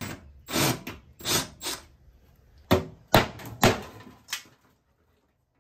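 Old sheet-metal duct and panning being worked loose and taken down from the floor joists: about eight short, unevenly spaced metal scrapes, rattles and knocks.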